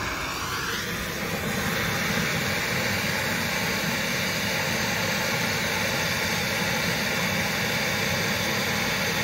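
A MAP-Pro gas hand torch burning with a steady rushing hiss as its flame heats a copper joint at a refrigerator's filter drier for silver brazing. The rushing shifts slightly higher about half a second in.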